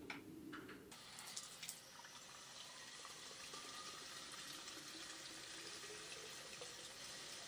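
Faint steady hiss of water, with a few light clicks in the first two seconds.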